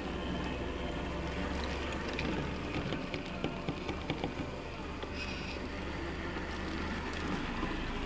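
Scale RC crawler truck driving slowly over forest litter: a steady low hum from its drivetrain, with a run of sharp crackles from its tyres snapping twigs about halfway through.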